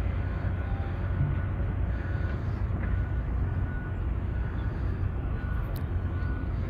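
Outdoor ambience: a steady low rumble.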